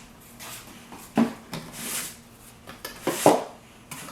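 Packaging being pulled out of a toy's box: a sharp knock about a second in and another near the end, with a brief rustle between.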